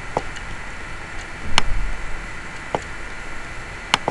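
Computer mouse clicks, four at uneven spacing over a steady hiss; the second click is the loudest and has a short low rumble after it.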